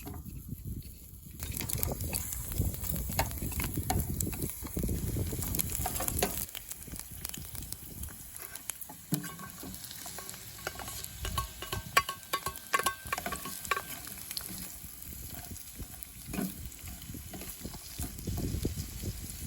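Food sizzling in a frying pan while being stirred, with many small scrapes and clicks of a utensil against the pan.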